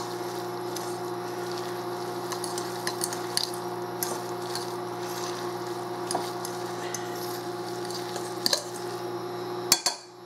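A fork stirring and mashing a moist salmon patty mixture in a glass bowl, with soft squishing and scattered light clicks of the fork against the glass. There are a few sharper taps near the end, over a steady hum.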